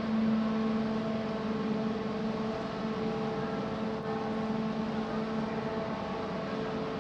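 Steady droning hum of the ferry Naminoue's engines and machinery running alongside the quay: one low held tone with several fainter tones above it.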